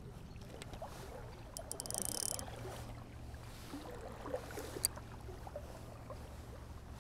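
Shimano Ultegra 2500 spinning reel and rod being handled: scattered soft ticks and clicks, a brief hiss with clicks about two seconds in and a sharp click near five seconds, over a steady low rumble.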